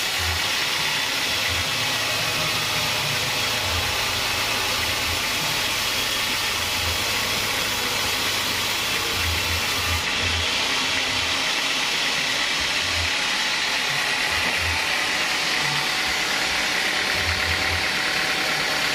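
Home-built band sawmill running, its blade sawing lengthwise through a teak log with a steady, loud noise. The sound shifts slightly about halfway through.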